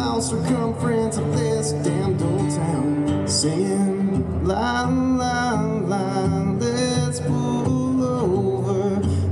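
Live band playing a country-style song: a singer's voice over guitar and other instruments, steady throughout.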